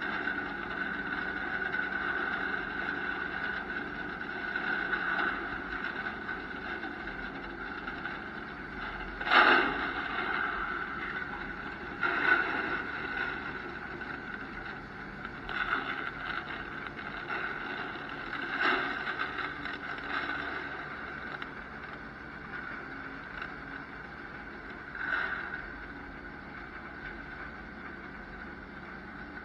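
Farm tractor engine running steadily, heard from inside the cab, with several sharp knocks or bumps rising above the drone at uneven intervals.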